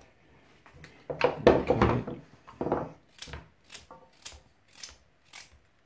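Kitchen knife slicing a raw carrot into rounds, crisp regular cuts about two a second in the second half, after a louder stretch of handling noise in the first seconds.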